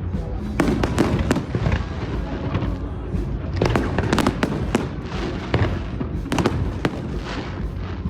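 Fireworks display: aerial shells bursting in a rapid, irregular series of sharp bangs and crackles over a continuous low rumble, with clusters of reports about a second in, around the middle and again past halfway.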